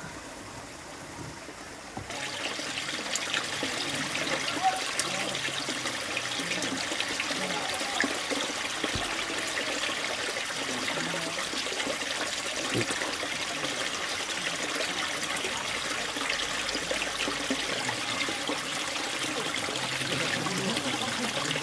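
Small stream trickling and babbling steadily, louder from about two seconds in.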